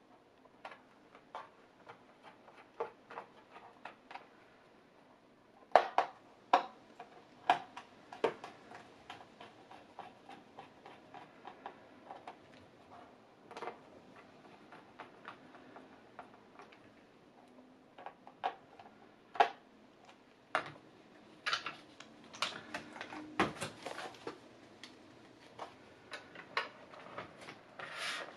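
Irregular sharp clicks and taps of a screwdriver, small screws and plastic parts as a tablet's back panel and stand are refitted. Louder clusters of clicks come about six seconds in and again past twenty seconds, with a brief scraping rustle near the end.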